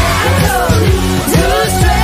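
Upbeat pop song playing: a woman's sung melody over a steady dance beat with heavy bass.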